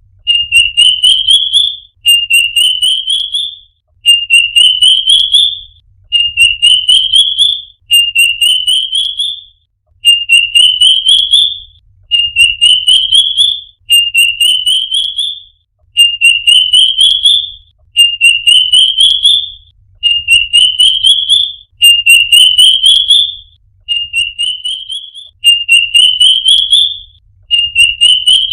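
A bird's song: a phrase of quick whistled notes rising steadily in pitch, repeated over and over about every two seconds with short pauses between.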